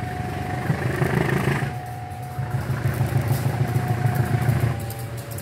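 CC 203 diesel-electric locomotive approaching under power, its diesel engine running with a deep drone as it is throttled up and sends out thick black exhaust smoke. The engine sound swells about a second in and again in the second half.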